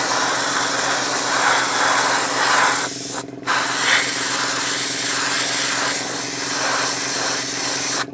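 Airbrush spraying grey Stynylrez primer: a steady hiss of air and paint that stops briefly about three seconds in, then resumes. A steady low hum runs underneath.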